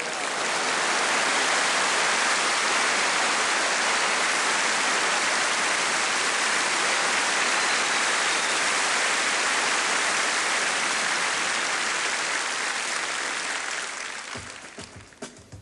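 Studio audience applauding, a steady dense clapping that dies away near the end.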